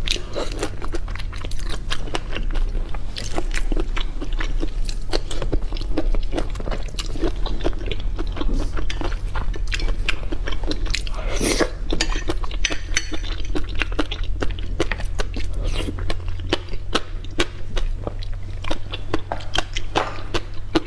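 Close-miked chewing of soy-marinated shrimp and chopped greens: many small wet crunches and mouth clicks, over a steady low electrical hum.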